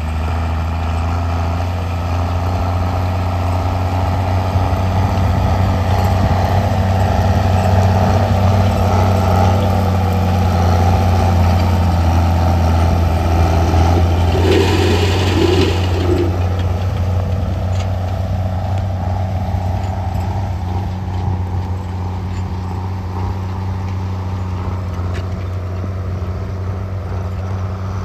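Heavy engine of harvest machinery running steadily with a deep, even hum. About halfway through there is a short hissing burst with a warbling tone.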